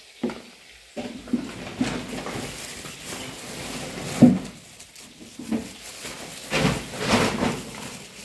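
Irregular knocks, bumps and scrapes of things being handled, with the sharpest knock about four seconds in and a run of them near the end.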